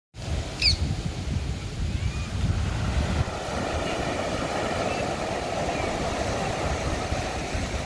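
Surf washing on a beach as a steady rushing noise, with wind buffeting the microphone as a low rumble for the first few seconds. A short high chirp sounds about a second in.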